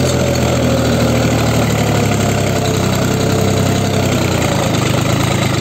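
Mahindra 265 DI tractor's three-cylinder diesel engine running steadily under load while pulling a nine-tine spring cultivator through the soil, throttle set at about 2000 RPM.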